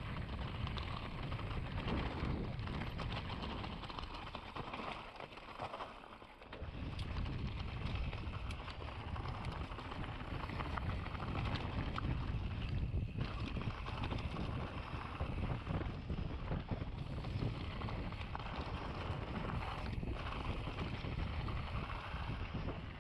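Wind buffeting the microphone of a mountain bike rider's camera on a fast trail descent, over the rattle of tyres and bike on rough ground. The wind noise eases briefly about five seconds in, then picks up again.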